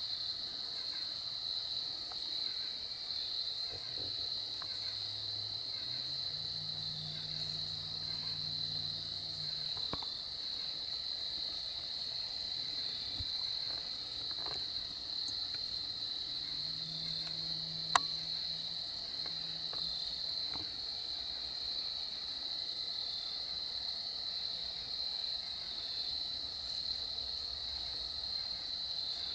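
Steady, high-pitched chorus of insects in the evening woods. A faint low hum comes and goes twice, and a single sharp click sounds about eighteen seconds in.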